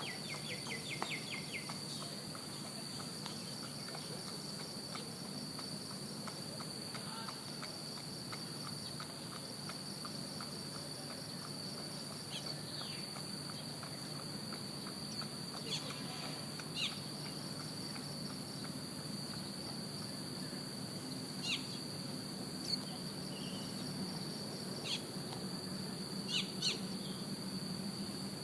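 Steady high-pitched drone of insects such as crickets, over a low steady hum, with short high downward bird chirps now and then, about a dozen scattered through, the loudest in the second half.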